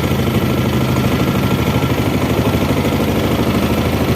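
Small fishing boat's engine running steadily, with a fast even putter.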